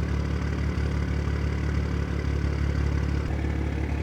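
BMW M2's turbocharged N55 inline-six idling steadily, a low even rumble.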